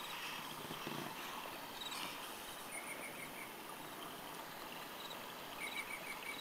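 Faint high chirping over quiet room hiss: two short trains of quick pulses about three seconds apart, with fainter ticks between.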